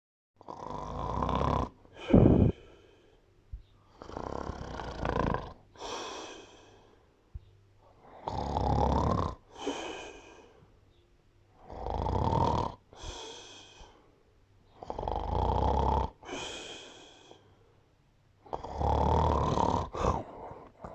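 A person snoring in a slow, even rhythm: on each breath a longer snore drawn in, then a shorter one going out, about six breaths, one every three and a half seconds. The loudest moment is a short, sharp breath out about two seconds in.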